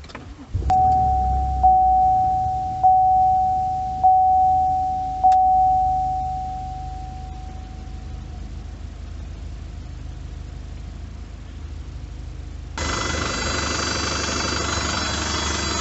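A Chevrolet Colorado's 2.8L Duramax four-cylinder turbodiesel starts about half a second in and settles into a steady idle, while a cab warning chime dings five times and fades. Near the end the sound turns suddenly louder and fuller, the diesel running with a loud fuel pump whine. The owner puts the pump noise down to air still in the fuel system after the fuel filter change.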